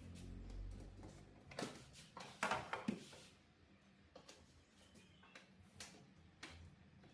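Scattered light clicks and knocks of parts and tools being handled on a workbench, the loudest cluster a few seconds in. A low hum fades out over the first second or so.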